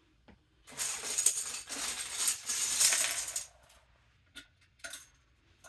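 Small hard objects rattling and clattering together for about three seconds, followed by two light clicks.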